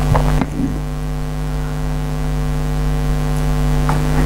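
Steady electrical mains hum, a low buzz with a stack of evenly spaced overtones, under a constant hiss.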